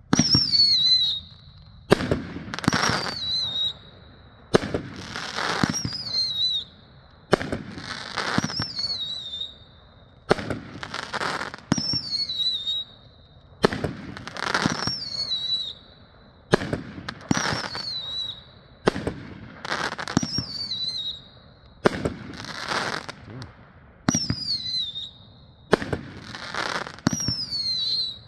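Raccoon "Special Offer" 17-shot 500 g fireworks cake firing its shots one after another, about one every two and a half seconds. Each shot is a sudden launch with a whistle that falls in pitch and then levels off, followed by the burst.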